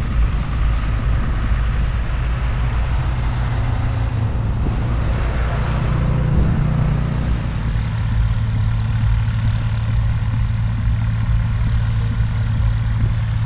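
Wind buffeting the microphone in a loud, steady rumble, over a steady low drone of a distant engine that comes up about halfway through.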